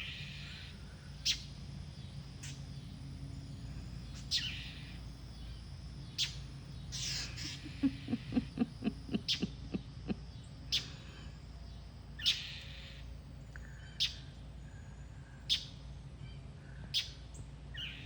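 Northern mockingbirds giving short, harsh alarm calls, repeated every second or two: scolding and mobbing a cat near their nest. About eight seconds in there is a quick run of low taps.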